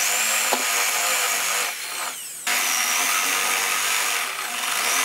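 Handheld power drill with a spade bit boring into a pine board. The motor whines in two runs with a short pause about two seconds in, then winds down near the end.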